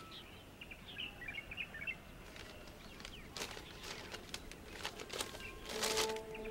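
Small birds chirping faintly outdoors, with a few sharp rustles of a newspaper being handled and opened. Near the end, sustained music notes come in.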